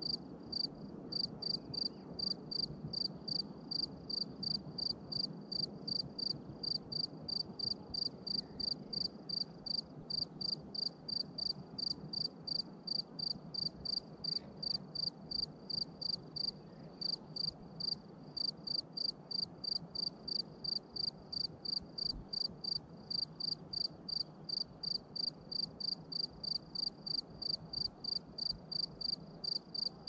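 A cricket chirping steadily in a high, even pitch, about three chirps a second, with a few short pauses. A faint low background rumble sits underneath.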